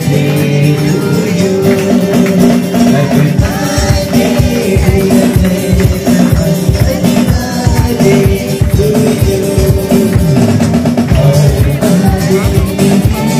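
Live band music: a singer over acoustic guitars and percussion, with a steady beat that comes in strongly a few seconds in.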